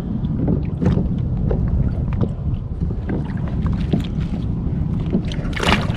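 Wind rumbling on the microphone of a kayak at sea, with scattered small clicks and knocks of handling. Near the end there is a brief louder rushing noise.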